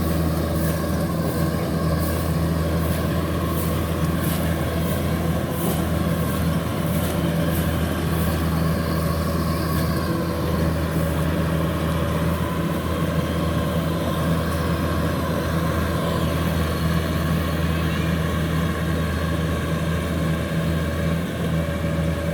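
Kubota DC93 rice combine harvester's diesel engine running steadily under load while cutting rice that has lodged into soft mud. A faint regular ticking sounds over it for several seconds early on.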